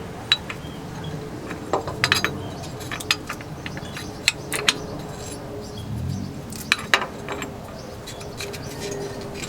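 Scattered sharp metallic clinks and taps, about a dozen spread irregularly, from hand tools and mount hardware being handled while fitting a dogbone insert into the engine-mount bushing.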